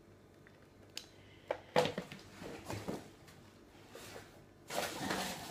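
A hard plastic toy being handled and put down: a few sharp clicks and knocks in the first two seconds, softer handling noises, then a stretch of rustling near the end.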